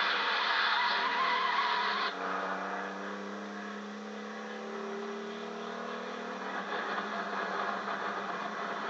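Semi-truck diesel engines racing, heard through an old TV's speaker: a loud rushing noise for about two seconds, then after a sudden cut an engine drone whose pitch climbs slowly.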